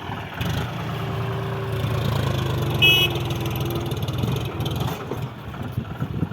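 Diesel engine of a backhoe loader or tractor running steadily, working harder from about half a second in until about four and a half seconds in, then easing. A brief high-pitched sound comes near the middle.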